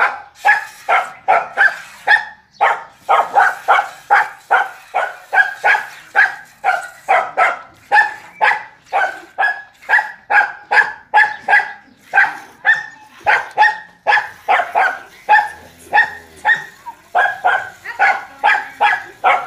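Buffalo milk squirting from hand-milking into a steel bucket, a steady rhythm of short strikes about two to three a second as the hands alternate on the teats.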